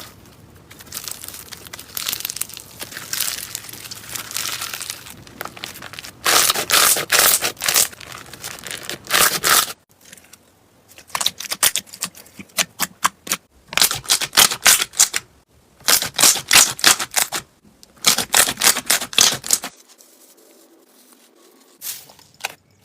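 Slime being pressed and squished by hand, giving rapid crackling, crinkling and clicking in dense runs. It breaks off and changes character about ten seconds in and again near twenty seconds.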